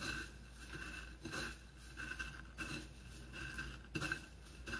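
Hands rolling and pressing a coxinha in dry breading: a series of soft, irregular rustles and pats of crumbs.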